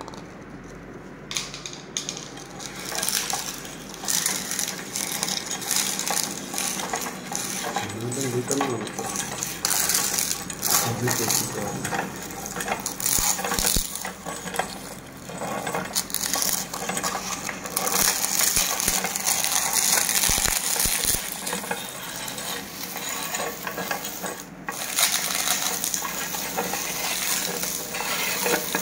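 Meat grinder crushing ice cream cones: a dense, irregular crackle of wafer crunching with metallic clinking, starting about a second in and continuing throughout.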